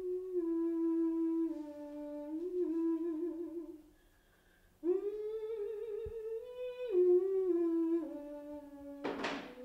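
A woman's voice humming a slow, wordless melody of long held notes that step up and down in pitch, with a pause about four seconds in. A short rushing noise comes near the end.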